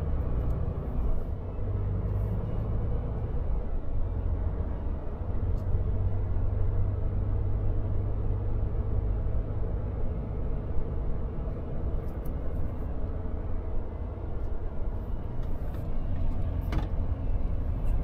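Volvo FH 500 Aero truck's diesel engine and drivetrain heard from inside the cab as the truck rolls slowly: a steady low drone. A few short clicks, the clearest near the end.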